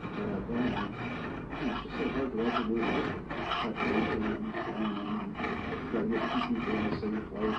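Steel hand file rasping across the edge of a steel knife blade in repeated back-and-forth strokes, filing the blade to shape.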